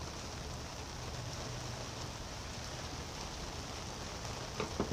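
Steady hiss-like background noise with a low hum underneath. Near the end come a couple of light clicks as a screwdriver works a screw out of the South Bend lathe.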